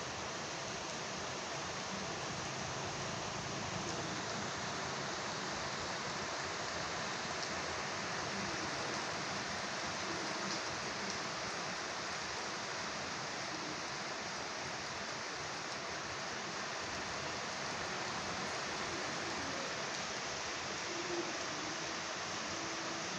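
Light rain shower falling steadily, an even hiss of rain.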